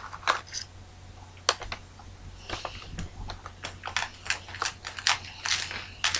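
Dry crackers crunching as they are bitten and pushed into an already full mouth: soft, irregular crackly clicks.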